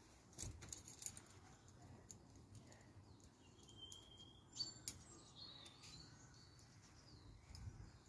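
Faint woodland birds chirping now and then, with a few short, sharp clicks near the start and again in the middle, over a quiet background.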